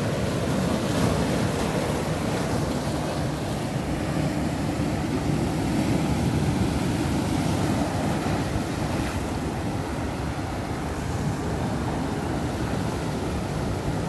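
Sea surf breaking and washing over shoreline rocks, a steady rush of water that swells a little now and then.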